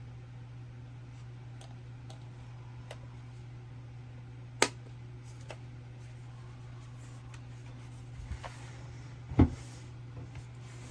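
Scattered small clicks and knocks over a steady low hum: one sharp click a little before halfway and a dull thump about three-quarters through, the loudest sound.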